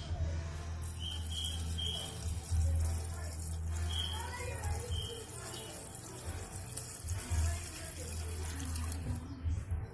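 STP engine flush pouring steadily from its can into the engine's oil filler.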